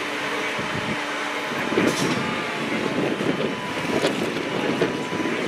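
Grabber truck's diesel engine running steadily to drive its hydraulic knuckle-boom crane while the crane holds and sets a light pole. About two seconds in, the sound turns rougher and more uneven.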